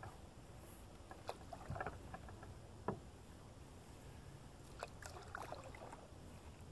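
Canoe paddling: a wooden paddle dipping into calm river water, giving a few short splashes and small knocks scattered through, over a low steady rumble.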